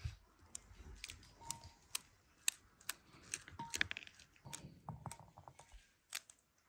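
Ripe pomegranate being pulled apart by hand: the rind tearing and the seeds snapping free, heard as a quiet, irregular string of small sharp clicks and crunches.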